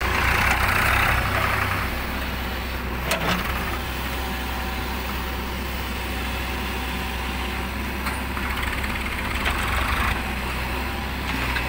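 JCB 3DX backhoe loader's diesel engine running under working load as the backhoe arm digs and swings, louder for the first couple of seconds and again near the end before settling to a steadier run. There is one sharp knock about three seconds in.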